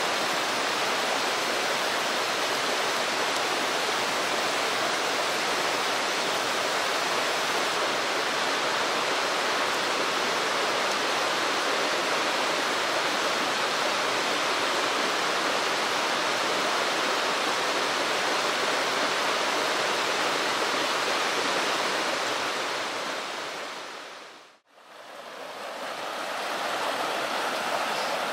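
Mountain stream rushing over rocks, a steady even hiss of flowing water. Near the end it fades out to silence for a moment and fades back in.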